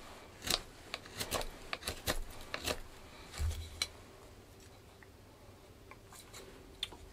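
Mora Companion knife blade whittling wood: a quick run of sharp slicing strokes in the first three seconds or so, then a low thump and only a few faint scrapes as the cutting stops. The edge is freshly sharpened to a flat Scandi grind.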